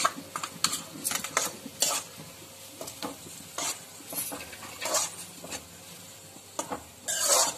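A slotted stainless-steel spatula scraping and clinking irregularly against a pan as chopped onion, chilli, ginger and garlic are stirred in hot oil, over a light sizzle. Near the end comes a longer, louder scrape.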